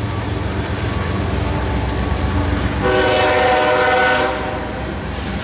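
Loaded ballast train rolling past with a steady low rumble of wheels and cars. About three seconds in, a train horn sounds a chord for about a second and a half and then cuts off.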